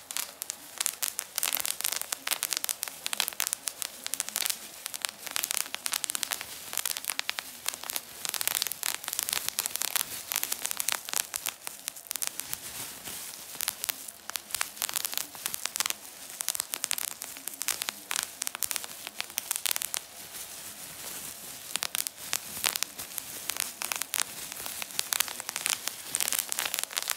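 Plastic bubble wrap squeezed and popped by hand: a rapid, irregular run of sharp pops mixed with plastic crinkling.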